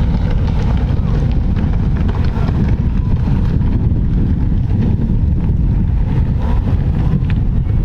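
Heavy wind buffeting on the microphone while riding a jet ski, with the watercraft's engine and water noise running underneath, steady throughout.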